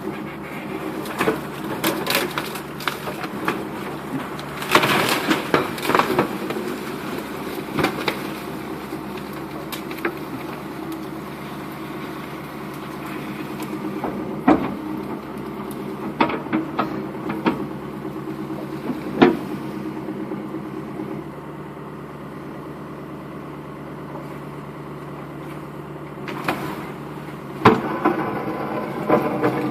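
Backhoe's diesel engine running steadily, with irregular knocks, clanks and cracks as it works, loudest in clusters about five seconds in, in the middle and near the end.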